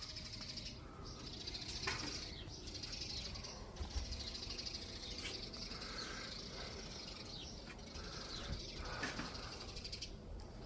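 Birds chirping outdoors over a steady high-pitched background hum, with a few sharp clicks.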